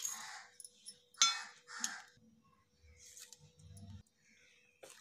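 A stainless steel cup knocking and clinking against a steel mixer-grinder jar as spices are tipped in: a few short clinks and rattles, the loudest about a second in, then softer rustling.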